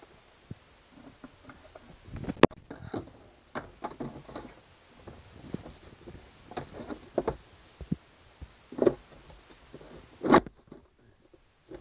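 Handling noise: irregular knocks, taps and rubbing as a hand works around a plastic tank and wiring in a wooden compartment. There is one sharp knock about two seconds in and two heavier thuds near the end.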